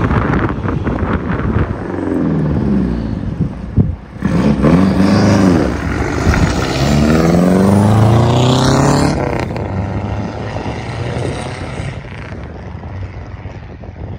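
Classic rally cars driving off, engines revving and accelerating. One engine climbs steadily in pitch for about three seconds and then breaks off as it changes gear.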